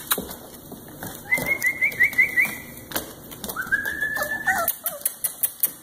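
Puppies whining: a high thin whine with quick wavering pulses about a second in, then a longer whine in the middle that drops in pitch at its end, over a busy patter of short light clicks.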